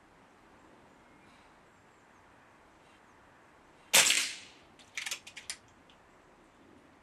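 A regulated .177 PCP air rifle, the Reximex Zone, fires a single shot: one sharp crack about four seconds in that dies away over about half a second. About a second later come a few quick mechanical clicks as the side lever is cycled to cock it and load the next pellet.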